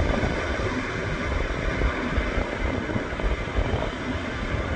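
Boeing C-17A Globemaster III's four Pratt & Whitney F117 turbofans running on the ground, a steady jet roar, with gusty low rumble of wind on the microphone.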